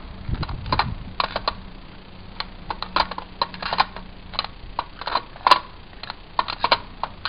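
Aircraft spark plugs being lifted out of and set back into the holes of a spark plug tray by hand: an irregular run of sharp metal clicks and clinks.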